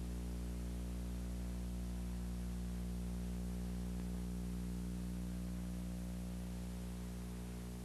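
Steady electrical mains hum with a stack of low overtones, under a faint hiss, easing slightly lower near the end.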